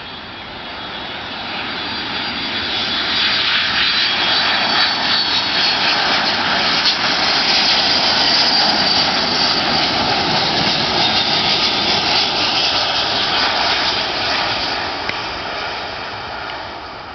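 Boeing 757-200 airliner's twin jet engines on landing approach passing close by: a jet roar with a high fan whine that swells over the first few seconds, holds loud through the middle and fades near the end.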